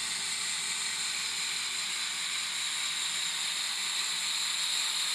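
Electric drill running steadily, boring into earth: an even hiss with a faint high whine.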